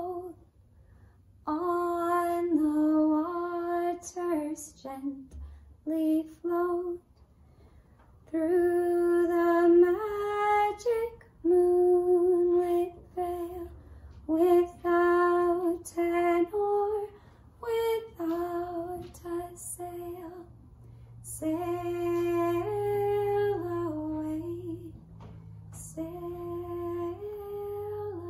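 A woman singing a slow song solo, without instruments, in long held notes that step up and down, with short pauses between phrases.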